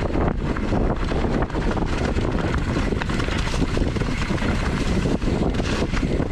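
Wind rushing over the microphone of a camera in fast motion, a steady loud rumble with a dense clatter of small knocks and rattles running through it.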